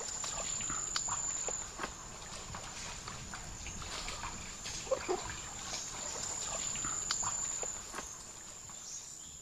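Rainforest insect chorus: one steady high-pitched buzz that swells twice, with scattered rustles and clicks of movement in the undergrowth.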